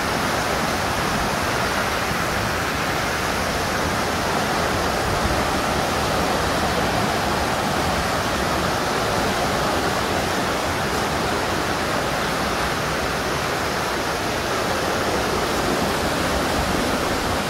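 River rapids rushing over boulders: a steady, unbroken rush of whitewater.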